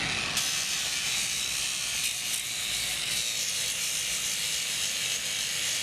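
Angle grinder running steadily against steel, cleaning down to bare metal for the welder's ground clamp, a dense high-pitched hiss that starts abruptly just after the start.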